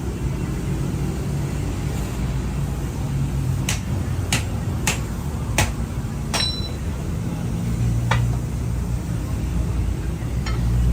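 An engine running steadily under a series of sharp metal strikes during truck repair work: five knocks about two-thirds of a second apart near the middle, the last one ringing briefly, then two fainter knocks later.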